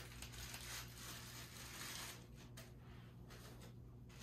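Faint rustling and handling noises from someone rummaging to fetch an object, over a steady low hum.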